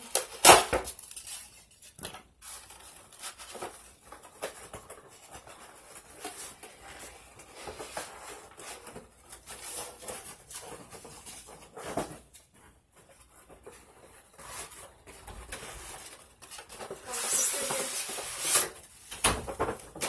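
Cardboard toy box and its packaging being handled and opened: scattered rustling, scraping and knocks, with a loud knock about half a second in and a longer stretch of rustling and scraping near the end as the foam tray holding the car comes out.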